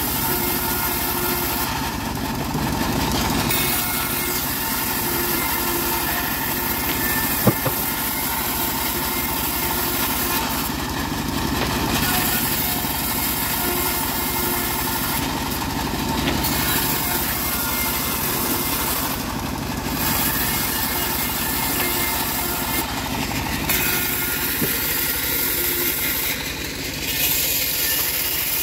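Homemade bandsaw mill running steadily under its engine while dry acacia boards are fed through and sawn. A single sharp click about seven and a half seconds in.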